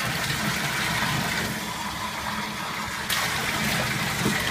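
Bathtub tap running steadily into the tub, with water splashing over a wet dog. The rushing dulls for about a second and a half in the middle and comes back abruptly about three seconds in.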